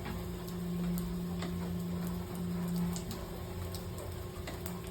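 Steady low hum of boiler-room machinery, with scattered light ticks and clicks over it.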